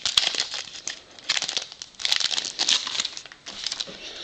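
Foil wrapper of a baseball card pack crinkling in several bursts as it is worked open and the cards are pulled out, fading near the end.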